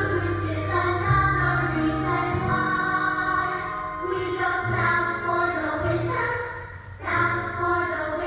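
A group of children singing a song in unison over an instrumental accompaniment with held low bass notes that change every second or so.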